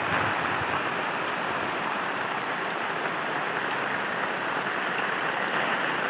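Heavy rain pouring down onto open water, a steady even hiss.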